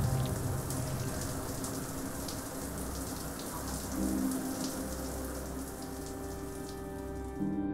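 Shower running, water spraying onto tile and skin, with low sustained tones of music coming in about halfway. The spray noise cuts off abruptly near the end.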